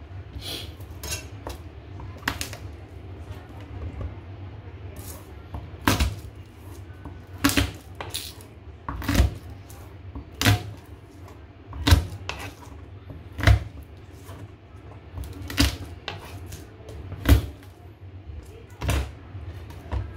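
Chef's knife chopping down onto a plastic cutting board while trimming garlic cloves: a few light taps, then sharp knocks about every second and a half from about six seconds in, over a low steady hum.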